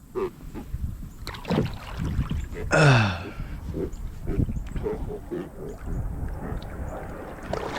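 Irregular knocks, bumps and rustling from handling a freshly caught blue catfish aboard a kayak, over a low rumble, with one short falling exclamation from a man about three seconds in.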